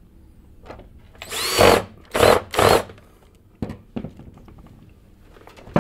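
Cordless electric drill-driver on its lowest torque setting, driving the screws of a vacuum cleaner's plastic sole plate: three short runs of the motor, the first the longest, each with a whine that rises as it spins up. Then a couple of light clicks.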